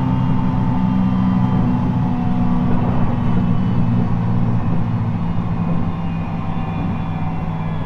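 Onboard running sound of a JR East 719 series electric train, with a steady low drone and several held tones from the drivetrain. This car is known for an unusual jet-like noise, and the sound eases off slightly near the end.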